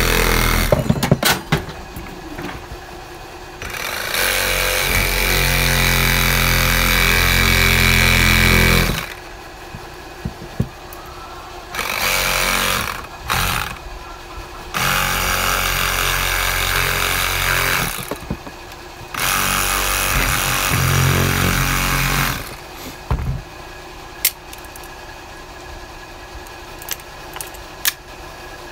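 Milwaukee cordless reciprocating saw cutting into the plastic body of a Mikuni lawn-mower pulse fuel pump, run in repeated bursts: the longest about five seconds, others two to three seconds, with a couple of short blips between. Small clicks of handling in the pauses; the saw stops for good a few seconds before the end.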